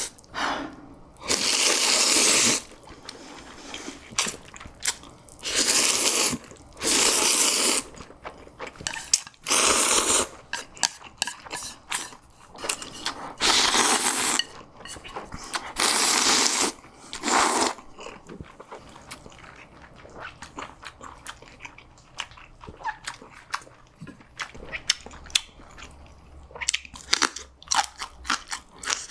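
Close-miked eating of Jjapaghetti black-bean noodles: about seven loud, hissy slurps of around a second each over the first eighteen seconds, then chewing with many short, sharp mouth clicks and crunches.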